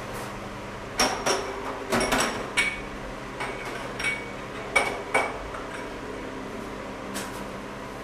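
A beer glass clinking and knocking against a metal tap and sink as beer is drawn straight from a brewery tank: about eight sharp clinks with a short glassy ring, bunched in the first five seconds or so. A steady machine hum runs underneath.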